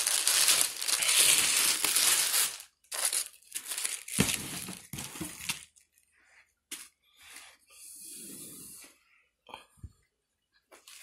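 Packaging crinkling and tearing as a subwoofer is pulled out of its box, loud for the first two and a half seconds, then a few shorter rustles before it turns to faint handling noises.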